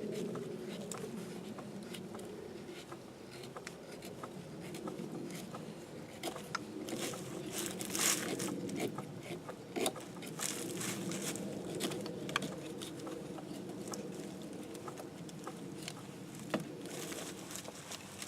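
Bark River Mini Bushcrafter fixed-blade knife shaving curls off a stick to make a feather stick: a run of short, sharp scraping strokes that come in bunches, over a steady low hum.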